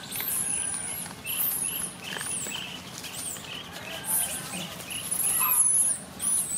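Repeated high-pitched chirps and whistled squeaks, each rising and falling quickly, with a shorter, lower note repeating about two or three times a second beneath them.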